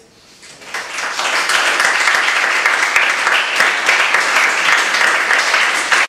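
A small audience applauding, swelling over the first second, then holding steady until it is cut off suddenly.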